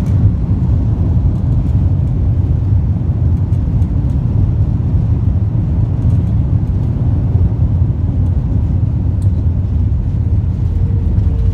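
Airliner rolling down the runway just after touchdown, heard inside the cabin as a loud, steady low rumble.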